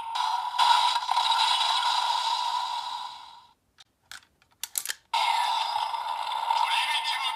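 Kamen Rider Saber DX transformation toy playing electronic sound effects through its small speaker, fading out about three and a half seconds in. A few sharp plastic clicks follow as the toy is worked, and its sound starts up again about five seconds in.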